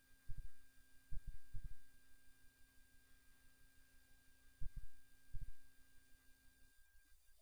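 Steady electrical hum with a thin high whine from the sound system, broken by several short, dull low thumps, some in quick pairs.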